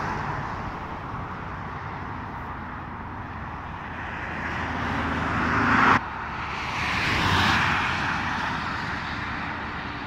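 Highway traffic noise: a steady rush of tyres and engines that swells as vehicles go by. It breaks off suddenly about six seconds in, then swells again and fades.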